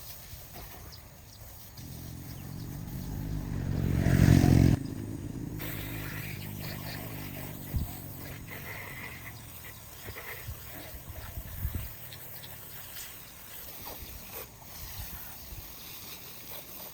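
Jeep engine revving up to a loud peak about four seconds in, then dropping abruptly back to a steady low running.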